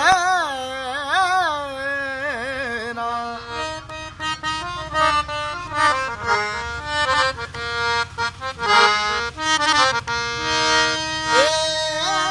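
A man singing a devotional song in a wavering, ornamented voice over a harmonium, then a harmonium passage of steady held reed chords with quick percussion strokes, the voice coming back in near the end.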